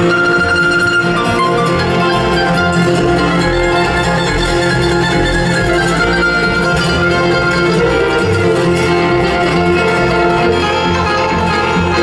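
Live bluegrass band playing an instrumental tune on acoustic string instruments, with plucked strings and fiddle.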